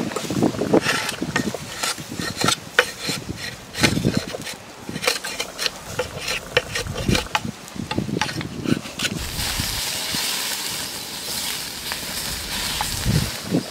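A large knife shaving and scraping a strip of bamboo in quick, irregular strokes with sharp clicks. About nine seconds in, a steady sizzle begins as pork intestines cook on a wire grill over a wood fire.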